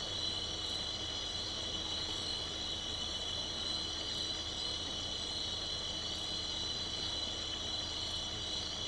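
Steady, shrill chorus of night insects over a low, steady rumble.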